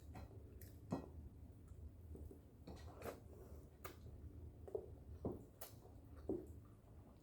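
Faint close eating sounds: chewing and soft lip smacks on a mouthful of rice and fish, with a few light clicks and taps spread through.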